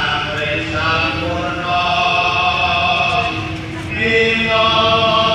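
Javanese dance music accompanying the archery dance, in which a group of voices chants long held notes that step from pitch to pitch, with a new phrase starting about four seconds in.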